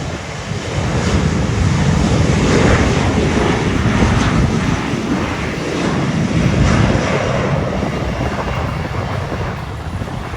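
Airliner engines passing by, a heavy rumble that swells about a second in, holds at its loudest through the middle and eases off near the end.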